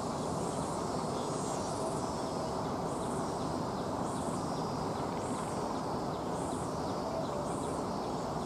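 Steady outdoor background rumble, with a faint high chirp repeating about once a second over it.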